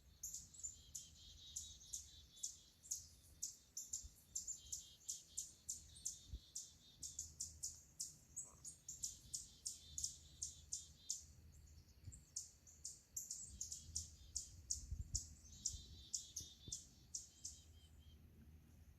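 Small songbirds chirping: a dense stream of short, high chirps, several a second, overlapping as from many birds together.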